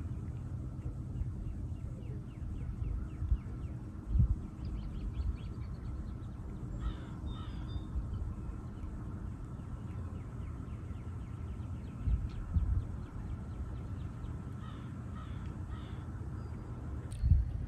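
Birds calling outdoors: runs of quick, even chips and a few harsher calls, over a low rumble of wind on the microphone that swells in gusts.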